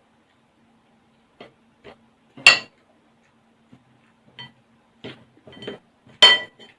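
Cutlery clinking against a dish while eating: two sharp, ringing clinks, one about two and a half seconds in and one near the end, with several lighter taps and scrapes between.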